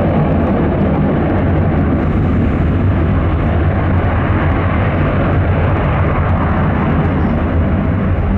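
Jet airliner's engines running loud and steady, a deep, even rumble.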